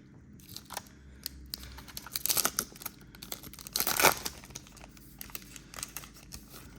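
Plastic wrapper of a trading card pack crinkling and tearing as it is opened, with the loudest tears about two and four seconds in.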